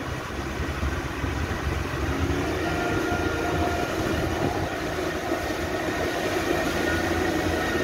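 Small open motorboat's engine running steadily under way, with water rushing along the hull; the engine note rises slightly about two seconds in.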